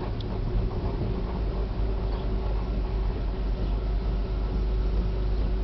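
Road and tyre rumble heard inside the cabin of a 2001 Ford Focus converted to battery-electric drive as it rolls along, with no engine sound and a faint steady hum.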